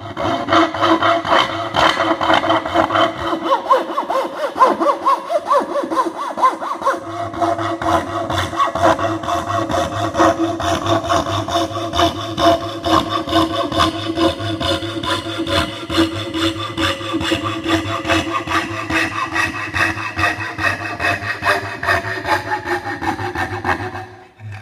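Coping saw cutting through thin plywood in a steady back-and-forth seesaw rhythm of even strokes over a steady hum, stopping near the end.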